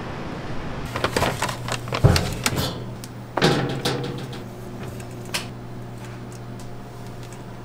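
A metal scoop knocks and scrapes against a stainless steel mixing bowl as flour is poured in. The sharpest knock comes about two seconds in, and another about three and a half seconds in leaves the bowl ringing. A steady low hum runs underneath.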